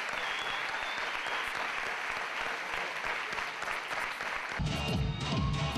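Crowd applauding with dense, steady clapping. About four and a half seconds in, dance music with a heavy beat cuts in abruptly.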